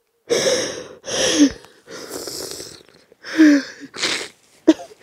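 A woman's voice in fervent prayer: about six loud, breathy, hissing vocal bursts, two of them ending in a short falling moan.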